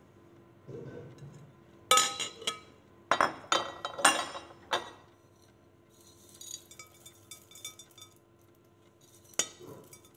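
A plate clinking and knocking against the rim of a glass salad bowl as food is scraped off it into the bowl. There is a close run of sharp clinks from about two to five seconds in, then fainter light ticks, and one more clink near the end.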